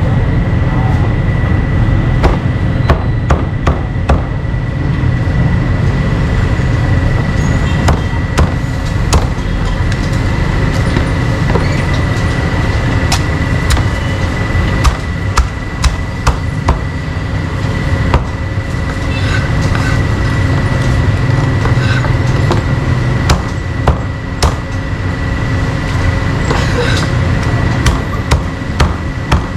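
Cleaver chopping meat on a wooden block, in quick runs of sharp knocks, over a steady rumble of street traffic.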